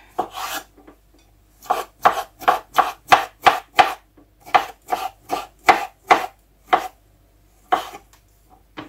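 Kitchen knife chopping pickled cucumbers on a wooden cutting board, in quick even strokes about three a second, pausing briefly around the middle and slowing to a couple of single cuts near the end.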